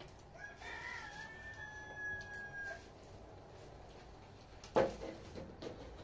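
A rooster crowing once, a single call of about two and a half seconds whose long final note is held level before cutting off. Near the end a single sharp knock or snap, the loudest sound, followed by a few small ticks.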